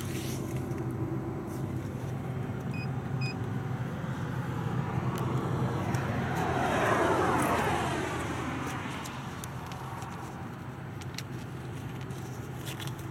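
A car passes by, swelling to its loudest in the middle and fading away over a few seconds, over a steady low hum.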